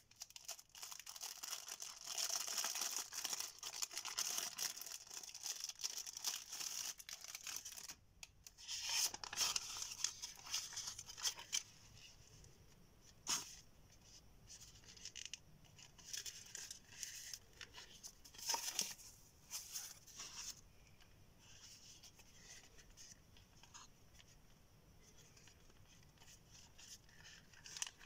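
Thin clear plastic packaging crinkling and rustling as it is pulled off a new wallet, dense and crackly for about the first twelve seconds. After that, quieter handling with a few sharp clicks and soft rustles as the bare wallet is turned and opened.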